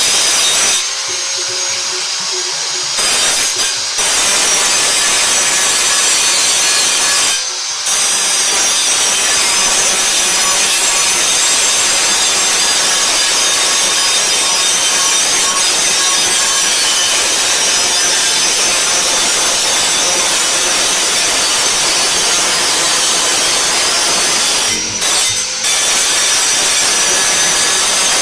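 Angle grinder grinding steel, a steady loud rasping whine. It eases off briefly about a second in, again near 7.5 seconds, and twice close together near the end.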